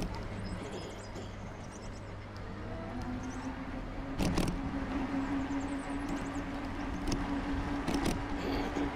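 Electric bicycle riding along a paved path: tyre and wind noise, with a steady motor hum that sets in about three seconds in. Two brief knocks, about four and eight seconds in.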